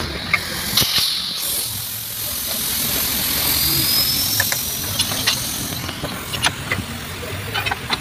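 A steady hiss that cuts off about six seconds in, over a low rumble, followed by several short knocks and clanks as a steel-rimmed car wheel is rolled and set onto a manual tyre changer.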